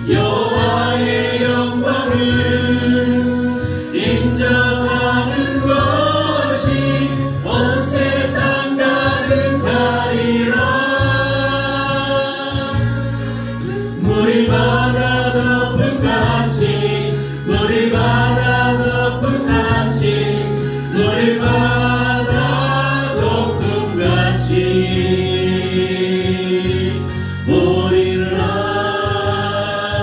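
A mixed group of men and women singing a praise song together into microphones, amplified through the room's sound system, over an instrumental accompaniment with a steady bass line. The phrases run a few seconds each, with short breaths between them.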